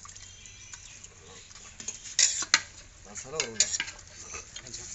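A spoon stirring curry in a metal pot, with a few sharp clanks against the pot about two seconds in.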